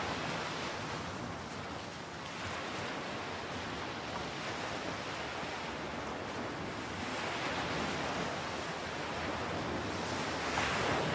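Ocean surf: a steady wash of breaking waves, swelling louder near the end.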